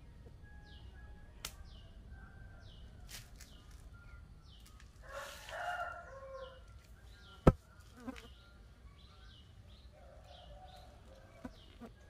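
Backyard birdsong: a small bird repeats a short, high, falling chirp about every two-thirds of a second, and a rooster crows once near the middle. A single sharp click, the loudest sound, comes a little past halfway.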